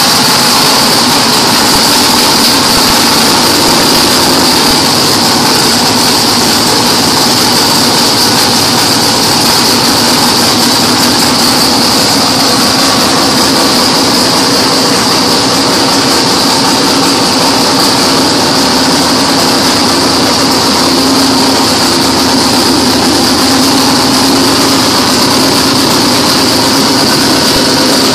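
Drag race car's engine running at a loud, steady idle.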